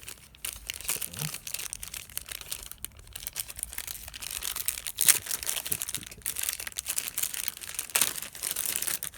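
Packaging crinkling and rustling as the new watch bezel is handled and unwrapped, an irregular run of crackles with a few sharper snaps, one about halfway through and one near the end.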